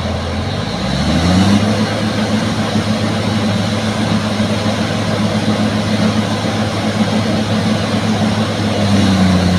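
Bulldozer diesel engine revving up about a second in, then running steadily at high revs under load, as it does while pulling a sunken bulldozer free.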